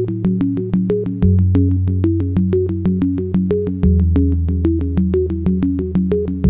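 Background electronic music: a synthesizer arpeggio over sustained bass notes that change every couple of seconds, with a quick, even ticking beat.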